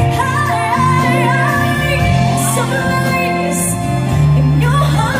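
Live pop ballad performance: a female singer holds long notes with vibrato over a live band with violins, drums and keyboards.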